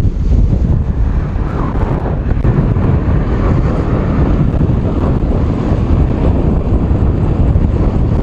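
Wind buffeting the microphone of a camera riding on a fast-moving bicycle: a loud, steady, fluttering rush, heaviest in the low end.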